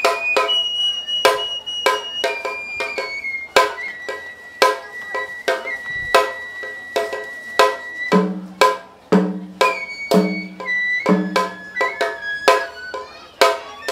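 Japanese festival music on a bamboo transverse flute and a rope-laced shime-daiko drum: the flute holds long high notes that step down in pitch over sharp, uneven drum strokes. From about eight seconds in, four deep strokes of a larger drum sound about a second apart.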